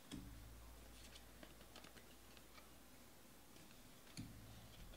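Faint clicks and ticks of trading cards being handled and flipped through by hand, with a soft knock at the start and another about four seconds in.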